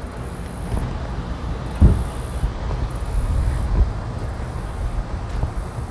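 Wind buffeting the phone's microphone as an uneven low rumble, with one dull thump about two seconds in.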